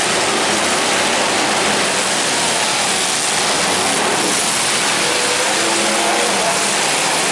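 Demolition derby cars' engines running and revving together in a loud, steady din, with no single crash standing out.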